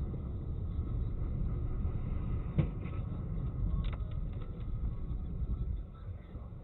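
Dash-cam recording of a car on the road: steady low road and engine rumble, with a sharp thump about two and a half seconds in and a lighter knock a little over a second later.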